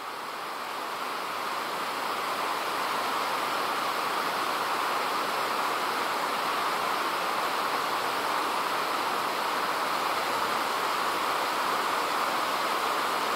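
A steady rushing noise with no pitch or rhythm, fading up over the first few seconds and then holding level.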